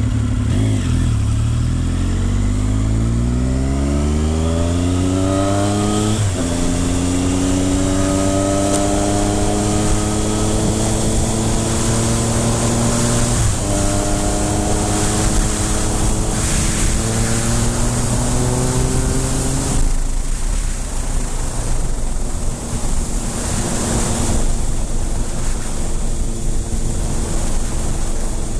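Triumph Speed Triple 955i's three-cylinder engine pulling up through the gears: its pitch climbs, drops at a gearchange about six seconds in and again at about thirteen seconds, climbs once more, then falls back to a steady lower note about twenty seconds in. Wind rush over the engine.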